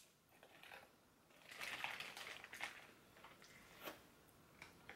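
Faint crackling and crunching of a boiled snow crab leg shell being snapped open by hand, with soft eating sounds as the meat is pulled out.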